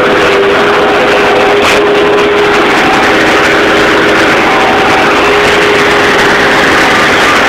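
Bobcat skid-steer loader's engine running loud and steady, heard from inside the cab, with a steady hum held under a broad engine noise.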